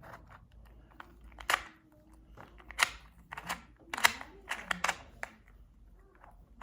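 Plastic clicks and clacks of a 2x2 Rubik's cube being turned by hand, in irregular bursts with a few louder snaps.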